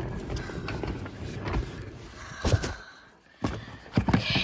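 Rustling handling noise, then a few sharp plastic knocks as the lid of a plastic dog-food storage bin is opened. The loudest knock comes about three and a half seconds in.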